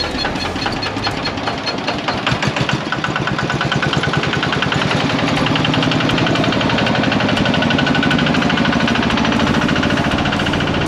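Boat engine running with a fast, even pulse, growing louder over the first few seconds as the boat pulls away, then holding steady.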